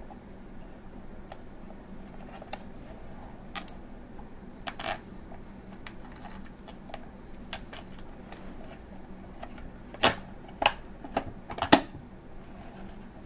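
Hands handling a clear acrylic case and its fittings: scattered light plastic clicks and taps, then a quick cluster of louder knocks near the end.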